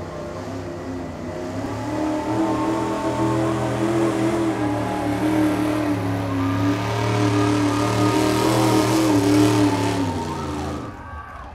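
A 5500 lb street-modified pickup's engine running hard under load as it drags a weight-transfer pulling sled. It builds over the first couple of seconds, holds loud and steady, then cuts off sharply about a second before the end.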